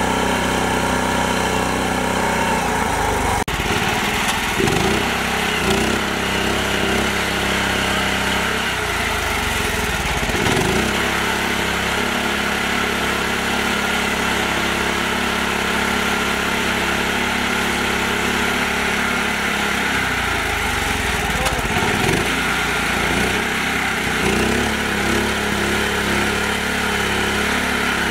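Mini tractor's engine running under load as it drives through deep mud and water. Its pitch dips and recovers several times, and the sound breaks off sharply about three and a half seconds in.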